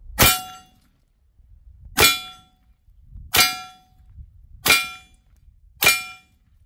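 Five shots from a high-power PCP air pistol, each hitting a painted steel silhouette target that clangs and rings briefly with a clear tone. The hits come about every 1.2 to 1.8 seconds.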